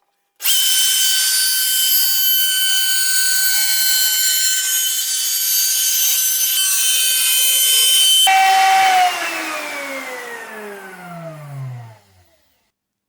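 Router motor starts suddenly and runs at full speed with a steady high whine, then is switched off about eight seconds in and spins down, its pitch falling until it stops near the end.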